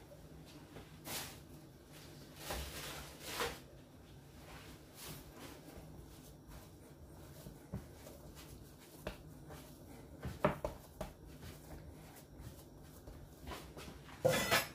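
Faint, soft handling sounds of hands pressing and kneading mashed yam dough on a wooden cutting board, with a few brief rustling swishes and light knocks, the loudest swish near the end.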